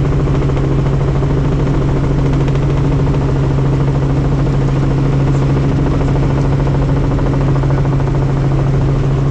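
Helicopter engine and rotor running steadily, a continuous low drone.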